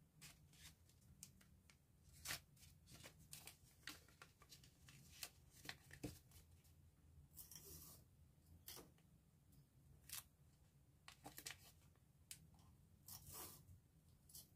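Faint rustling and light clicks of paper envelopes and a paper pouch being handled and folded, with two longer tearing rasps, one in the middle and one near the end.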